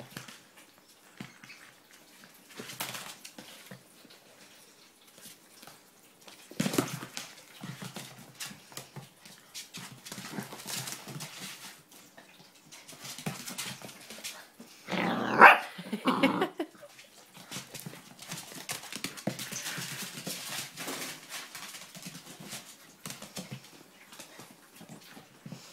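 A puppy barking in play: a short bark about seven seconds in, and the loudest, a pair of barks, about fifteen seconds in, with soft scuffling noises between.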